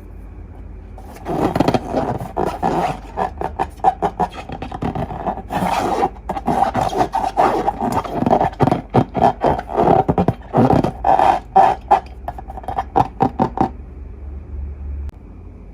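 Slime and rubber balloons being worked by hand: a long, dense run of irregular squeaking, scraping and clicking that starts about a second in and stops near the end.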